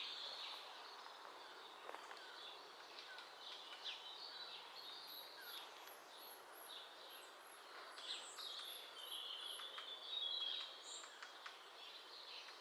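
Small woodland birds calling, with a run of very high, thin repeated notes in the middle and a louder call near the end. Faint, irregular taps sound under them, which the birder takes for a woodpecker tapping but thinks might be a squirrel.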